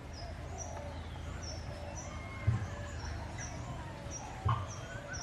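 A small bird chirping over and over, short high notes about twice a second, over a steady low rumble. Two sharp thumps stand out, about two and a half seconds in and near the end.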